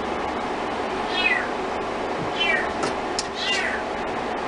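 Kitten mewing: three short, high cries, each falling in pitch, about a second apart, over a steady hiss.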